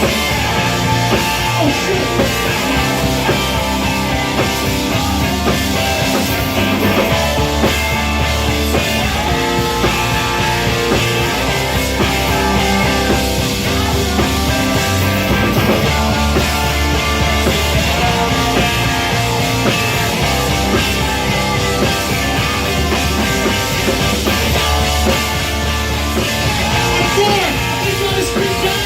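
Loud punk-rock music played live with a steady drum beat, an instrumental stretch without vocals.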